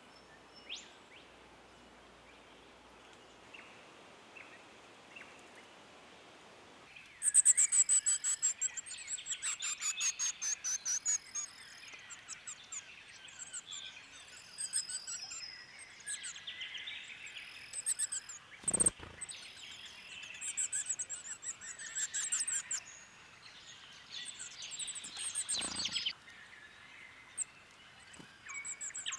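Forest birds calling: after a faint first several seconds, a busy chorus starts abruptly with rapid rattling trills and high whistled notes, and carries on to the end. Two brief knocks stand out partway through.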